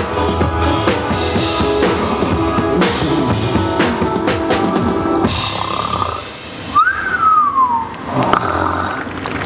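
Drum kit played along with a backing track, with drum and cymbal strokes, until the music stops about five seconds in. A single whistle-like tone then rises briefly and falls.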